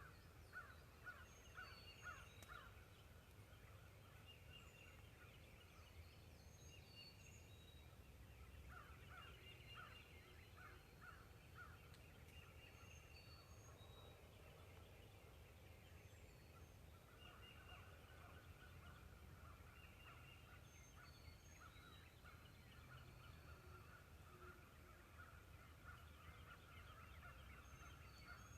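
Faint turkey yelping: a short series of evenly spaced calls at the start and again about nine seconds in, then a longer run of quicker calls from about seventeen seconds on. Small birds chirp faintly in the background.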